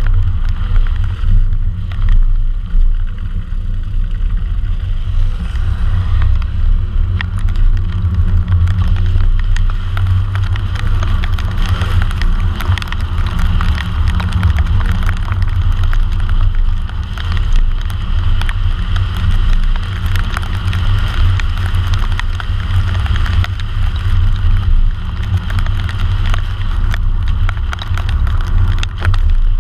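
Car driving through rain on a wet road, heard from a camera mounted low on the outside of the car: a steady low rumble with the hiss of tyres and spray on the wet pavement over it.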